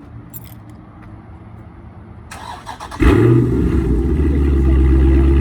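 2016 Dodge Charger R/T's 5.7-litre Hemi V8, with a mid-muffler delete and 5-inch tips, cranked by the starter and firing about three seconds in: a loud flare on catching that settles into a steady idle. The engine is already warm, so this is a hot start, not a cold start.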